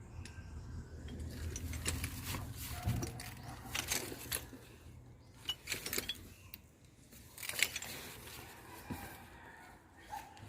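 Scattered light clinks and rattles, like small metal objects being handled, over a low rumble during the first few seconds.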